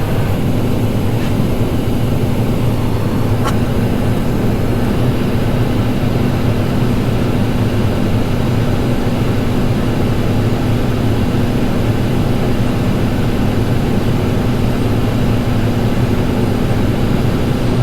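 Tractor engine running steadily at raised throttle, driving the grain cart's PTO unloading auger while corn is unloaded into a trailer.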